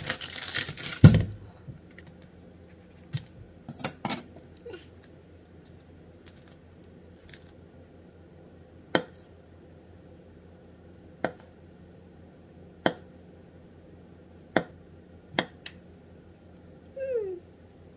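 A wrapper rustles as it is peeled off a large fish sausage, with a thump about a second in. Then a kitchen knife slices through the sausage, knocking on the wooden cutting board once with each cut, about every one and a half to two seconds.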